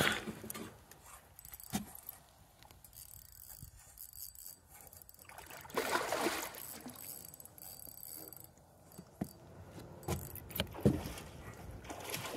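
Handling noise from a covered phone: irregular rustling with scattered clicks and knocks, swelling louder about halfway through and again near the end.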